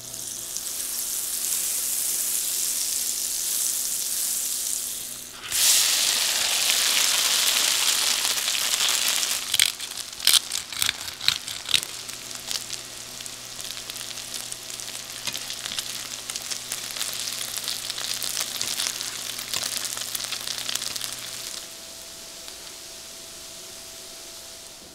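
Potato gnocchi sizzling as they pan-fry in oil, with a louder burst of sizzling about five seconds in. Around ten to twelve seconds in, metal chopsticks click against the pan as the gnocchi are turned. The sizzling drops away a few seconds before the end.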